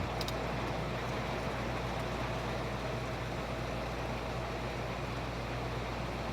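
Steady rain during a thunderstorm, an even hiss with a low steady hum underneath.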